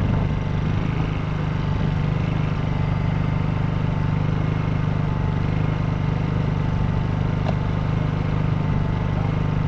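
A vehicle engine running steadily at a constant speed: an even low drone with no change in pitch.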